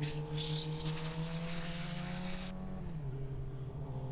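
Suzuki GSX-R sportbike engine running at a low city-street cruise, its pitch creeping up and then dropping about three quarters of the way through as the throttle is eased or a gear is changed. Hissing wind noise on the helmet microphone stops abruptly a little past halfway.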